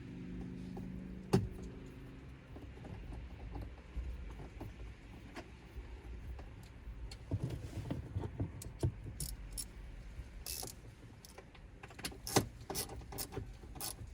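Plastic interior trim pieces in a pickup cab being handled and snapped into place: scattered sharp clicks, taps and rattles, coming thicker in the second half. A low steady hum sits under the first two seconds.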